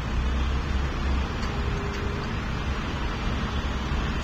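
Steady low rumble of heavy vehicle engines and road traffic, with no clear starts or stops.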